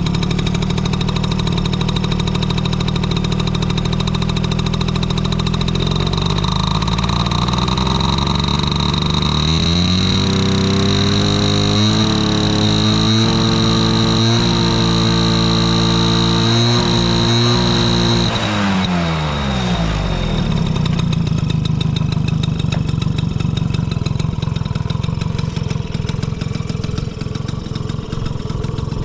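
Honda Motocompo's small single-cylinder two-stroke engine running at idle, revved up about a third of the way in and held at higher revs for several seconds, then dropping back to idle. It revs cleanly with no abnormal noise, as the start-up check has it.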